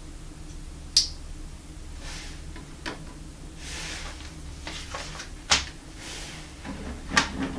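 A built plastic Lego set being handled and folded shut into its book form: four sharp plastic clicks and knocks, the loudest about halfway through, with a short scraping rustle before it.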